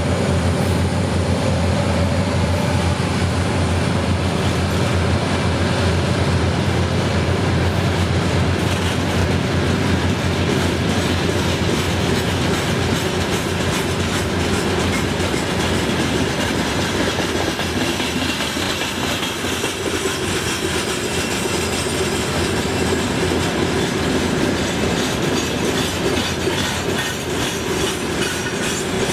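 Freight train of open gondola wagons rolling past, the wheels clattering over the rail joints under a steady low rumble.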